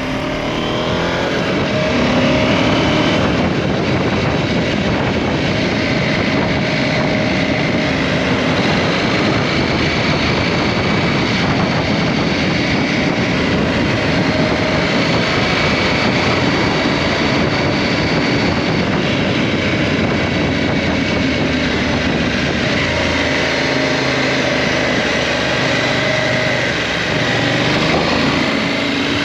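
KTM 790 Adventure's parallel-twin engine pulling under way, heard over a steady rush of riding noise. Its pitch climbs over the first couple of seconds, holds fairly steady, then dips briefly and rises again near the end as the rider eases off and accelerates.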